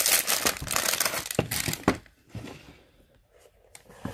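Clear plastic wrapper crinkling for about two seconds as a cardboard jewelry gift box is slid out of it, with a couple of sharp clicks near the end of the crinkling. Then a few faint taps as the box is handled.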